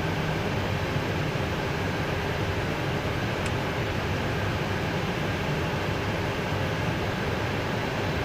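Steady flight-deck noise of an Airbus A320 in flight: an even rush of air with a faint steady hum under it.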